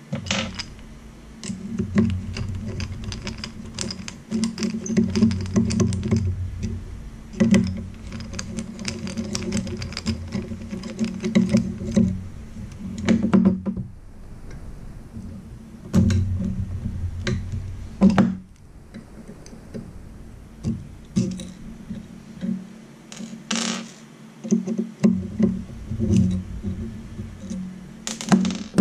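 Irregular clicks, taps and small metallic knocks of a hand screwdriver working small screws and handling the aluminium housing of a Redlake MotionXtra HG-LE high-speed camera, with a low hum coming and going.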